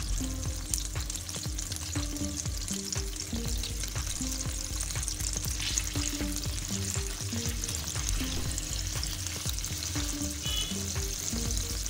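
Cardamom pods sizzling in hot melted butter in a nonstick pan, with light scraping from a silicone spatula stirring them. Soft background music with a simple repeating melody plays underneath.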